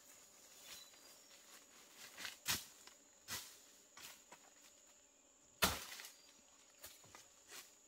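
Footsteps crunching on dry bamboo leaves, with snaps of twigs and rustling undergrowth as a person pushes through ferns: a handful of separate crunches, the loudest about two-thirds of the way through.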